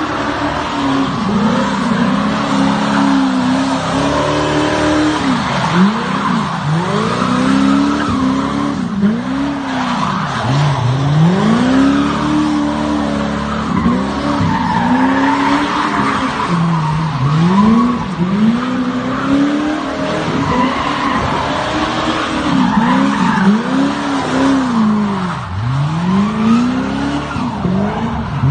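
An off-road Corvette's engine revving up and down over and over as it spins its rear tires in donuts, with the tires squealing and skidding on the asphalt throughout.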